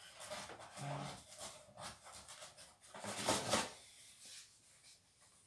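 Irregular rustling and handling noises of clothes and a colour catcher sheet being put into a front-loading washing machine drum, loudest a little past three seconds in.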